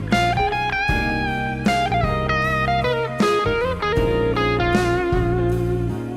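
PRS SE NF3 electric guitar playing a melodic lead with string bends and vibrato, through an amp-sim plugin with delay and reverb, over a backing track with bass and a steady drum beat.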